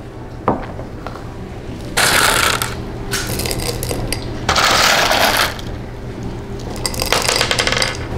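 LECA clay pebbles rattling and clinking in a plant pot as they are filled in around a cutting, in four short bursts with a single click near the start.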